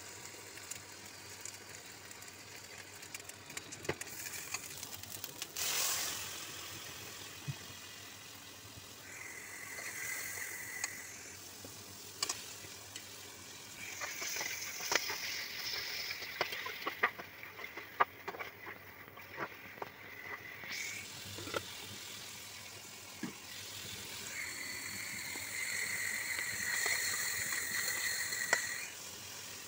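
Chicken and onions sizzling in hot oil in a pan, the sizzle swelling in several stretches, with a metal spatula scraping and knocking against the pan.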